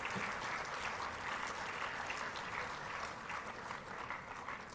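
Audience applauding, the clapping dying down toward the end.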